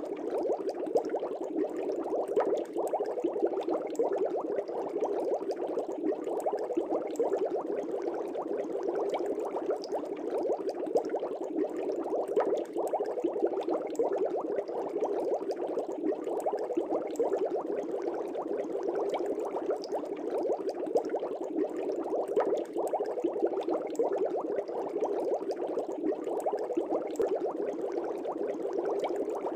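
Aquarium air bubbles rising and bursting at the water surface in a steady, dense bubbling with many small pops.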